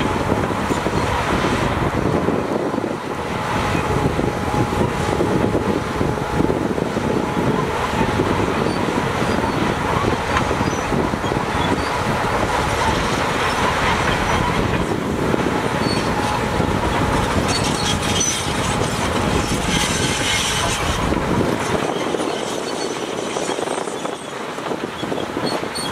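A crawler bulldozer working, its diesel engine running under load and its steel tracks clanking and squealing, with a steady whine throughout. Sharper squeaks come about three quarters of the way in.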